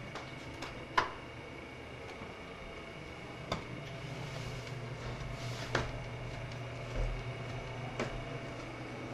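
Footsteps going down basement stairs: a few separate, slow knocks, the loudest about a second in, over a steady low hum.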